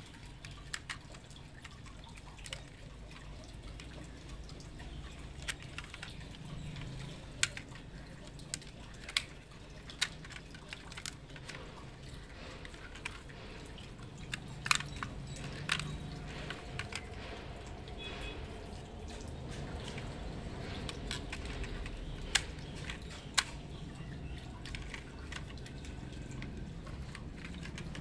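Scattered small clicks and taps of diecast toy vehicles being handled and turned over by hand, a few sharper knocks among them, over a low steady background hum.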